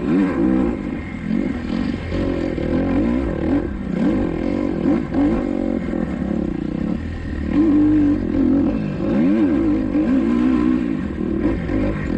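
Kawasaki KX250XC dirt bike engine revving up and down over and over, climbing and dropping in pitch every second or two as it is ridden hard through the gears.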